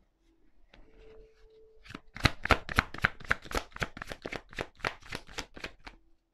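Deck of tarot cards being shuffled by hand: faint rustling, then from about two seconds in a quick run of crisp card snaps, about five a second.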